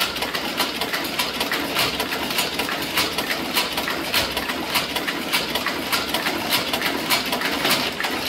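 Monotype composition caster running and casting type: a steady mechanical clatter with a sharp clack a little under twice a second, each cycle casting and ejecting one character.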